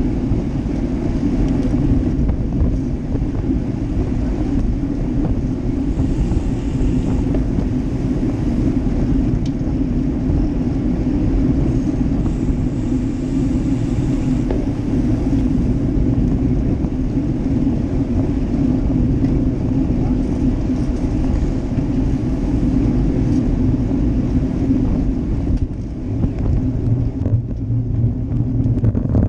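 Steady wind buffeting on the microphone of a handlebar-mounted GoPro Hero Session, with the rumble of a road bike's tyres rolling on asphalt.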